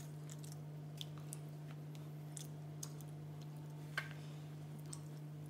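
Faint soft squelches and small scattered ticks as ripe tomato halves are squeezed by hand over a ceramic bowl, with a sharper tap about four seconds in. A steady low hum runs underneath.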